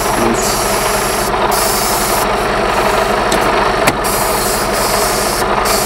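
Compressed air hissing steadily from the yellow service-brake hose coupling as it is pushed onto the semi-trailer's connector, because the coupling's rubber seals are old and leak air. The truck's diesel engine idles underneath, and there is one short click about four seconds in.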